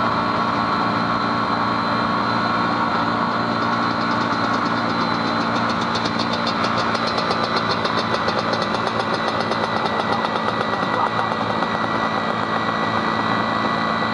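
ATV engine held at high revs during a burnout, its rear tyres spinning in place on grass. The engine runs steadily, with a fast, even chatter over the top for several seconds midway.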